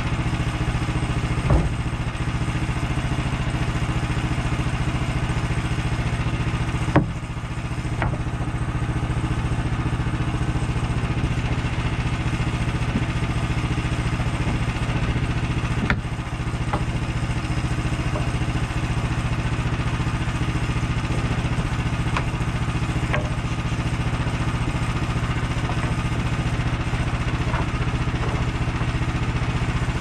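An engine running steadily at a low, even hum, with the sharp knocks of sawn boards and sticks being laid on a lumber stack a few times.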